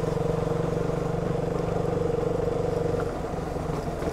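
Motorcycle engine running steadily under way, easing off about three seconds in and picking up again near the end.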